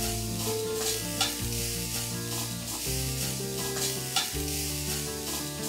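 Metal spatula stirring grated coconut and jaggery in a steel kadhai over the flame, with repeated scrapes against the pan and a sizzle as the jaggery melts into syrup. Soft background music with sustained notes plays underneath.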